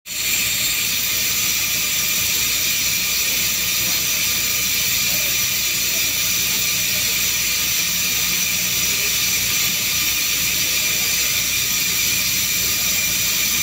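A machine running steadily: a continuous loud hiss and whir with several steady tones and a low hum, unchanging throughout.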